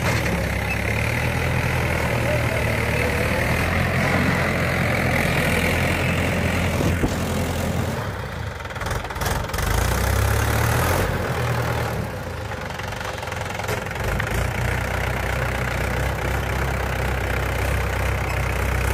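Mahindra 415 DI tractor's diesel engine running steadily while hauling a loaded trailer of stones. About eight seconds in the engine sound dips and shifts, then settles back to a steady run.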